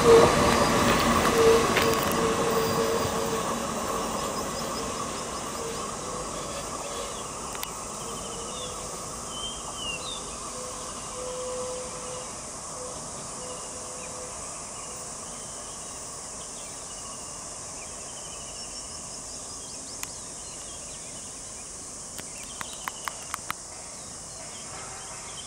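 Express train's coaches rolling past and fading away into the distance over the first several seconds, with a thin, broken squeal. A steady high insect buzz fills the background, with a few faint bird chirps, and a short run of clicks near the end.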